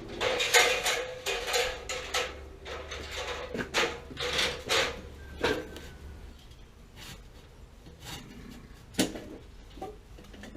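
Irregular knocks, clatters and scrapes of sheet-metal vent pipe being handled and fitted, the busiest in the first half, with one sharp knock near the end.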